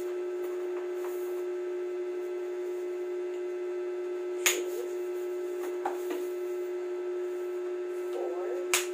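Sections of a weighted hula hoop clicking together as they are snapped into their push-button joints: two sharp clicks, about halfway through and near the end, with fainter handling ticks, over a steady hum.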